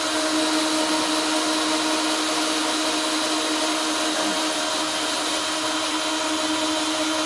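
Cordless drill running steadily at full speed, a constant whine over a hiss, as it is pushed against the van's sheet metal to start a hole.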